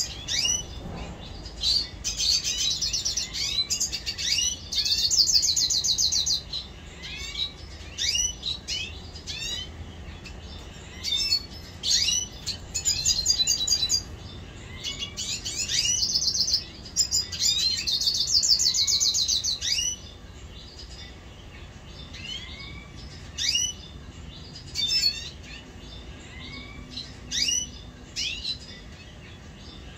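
Red siskins singing and calling: bouts of rapid high trilling lasting a second to a few seconds, mixed with many short down-slurred chirps. The trilling stops about two-thirds of the way in, leaving only scattered chirps.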